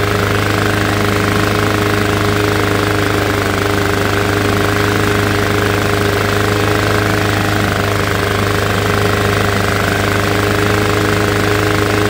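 Walk-behind lawn mower's small single-cylinder engine running steadily at a constant speed. It doesn't sound good, which the owner puts down to valves needing adjustment, or possibly a bent blade or bent shaft.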